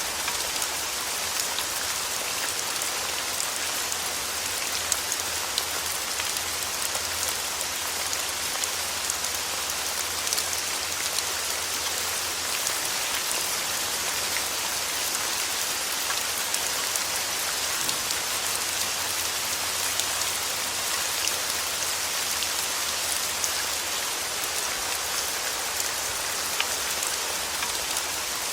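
Steady rain falling: an even hiss with many small drop ticks and no change in intensity.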